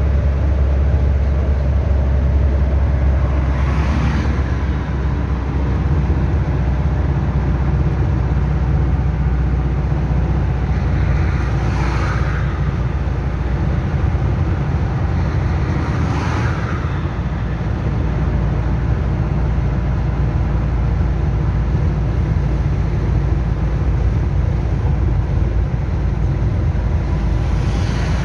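Chevrolet D-10 pickup's turbo diesel engine running steadily, with a few brief hissing swells over the low engine sound, about four seconds in, twice between twelve and sixteen seconds, and near the end. It is being recorded to show a strange noise it makes.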